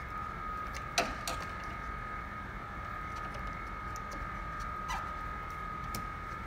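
Four short plastic clicks and knocks from hands working at the stubborn wiring connector of a Saab 9-3's cooling-fan control module; the sharpest is about a second in, another follows just after, and two more come near the end. A steady high-pitched hum runs underneath throughout.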